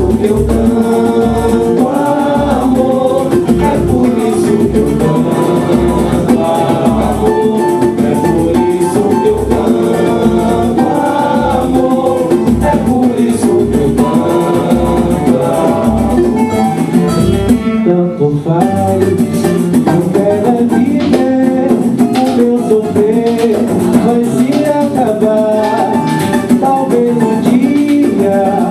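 A live band sings in several voices over acoustic guitars, hand drums and shakers. A deep drum beats about twice a second until a short break about two-thirds of the way in, after which the singing and guitars carry on without it.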